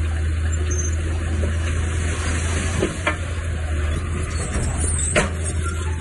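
Heavy-equipment diesel engine running steadily with a low rumble under an even hiss, and a few sharp clanks about three seconds in and again near the end.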